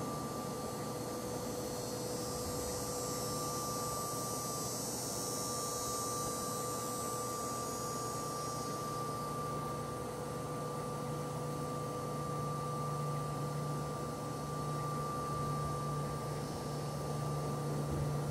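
Steady background hum and hiss with faint high steady tones; a higher hiss rises from a couple of seconds in and fades out about nine seconds in, and a low hum grows stronger from about halfway.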